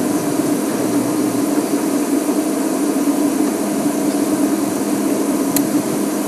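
Steady mechanical hum from the safari vehicle: a constant low drone, like an idling engine or onboard machinery.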